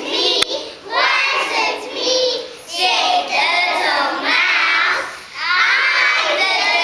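A group of young children singing together in phrases with short breaks between them. A brief click sounds shortly after the start.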